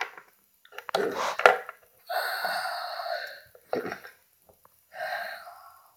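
A voice making drawn-out wordless sounds, twice, with a sharp knock of a plastic toy figure set down on the floor about a second and a half in.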